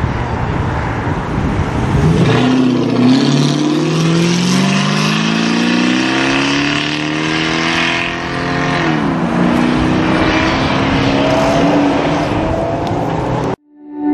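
Mercedes 280 SE with a swapped-in V8 accelerating away, its engine note climbing through a gear, dropping at an upshift about nine seconds in, then climbing again in the next gear. The engine sound cuts off suddenly near the end.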